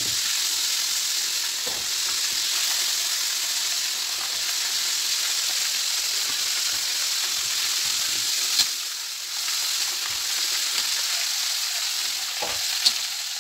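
Floured chicken pieces deep-frying in hot oil in a steel wok: a steady sizzle, during the first, half-cooking fry of a double fry. Two sharp clicks sound, one about two-thirds of the way in and one near the end.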